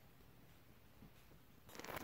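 Near silence: room tone, with a short soft rustle near the end.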